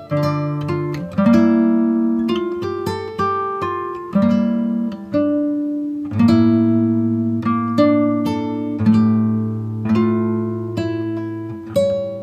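Background music: a plucked acoustic guitar playing a slow tune, a new note or chord every half second to a second, each ringing out and fading.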